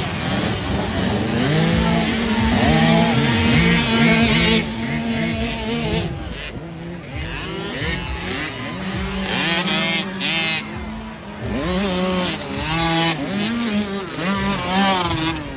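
Several 50cc motocross bikes racing, their small engines revving up and down in quick repeated sweeps, with more than one engine sounding at once. There is a short lull about six seconds in before the revving picks up again.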